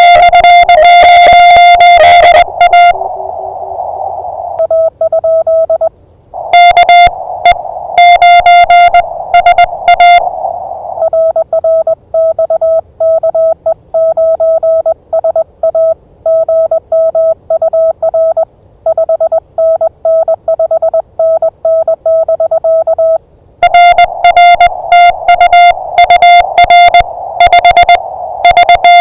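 Morse code (CW) on a ham radio transceiver: a single beep near 700 Hz keyed in rapid dots and dashes. Some runs are loud and harsh and others softer at a slightly lower pitch, as stations send in turn, with a faint receiver hiss in the gaps.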